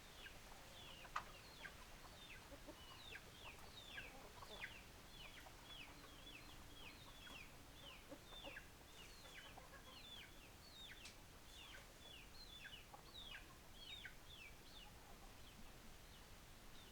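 Chickens calling: a steady run of faint, short, high calls, each falling in pitch, two or three a second, with a sharp click about a second in.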